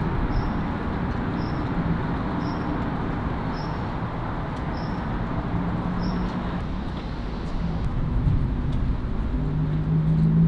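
Steady rushing outdoor background noise, like distant traffic, with a faint high-pitched chirp repeating about once a second for the first six seconds.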